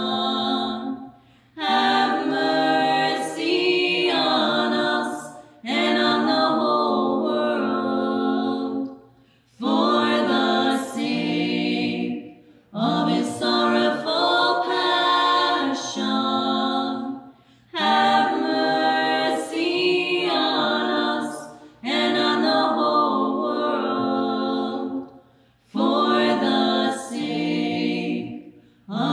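Small group of women's voices singing a prayer a cappella, in phrases of a few seconds each with short breath pauses between them.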